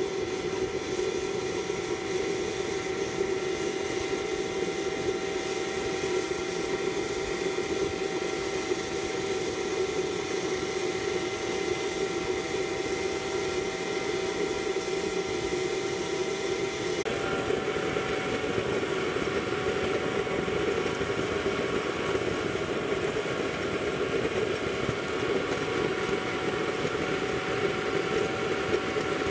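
Fire-extinguisher waste-oil stove burning under forced draught from a blower pipe: a steady burner roar with a constant whine over it. The tone shifts slightly about seventeen seconds in.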